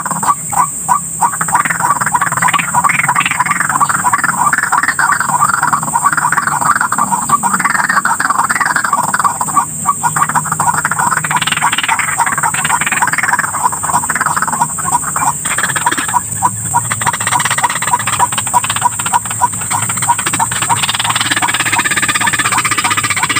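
White-breasted waterhens (ruak-ruak) calling, a dense run of fast, repeated harsh notes over a steady high hiss.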